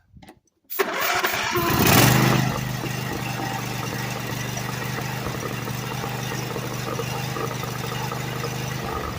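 Small twin-cylinder engine with a freshly cleaned and reinstalled carburetor starting: it catches suddenly under a second in, revs up briefly, then settles into a steady idle.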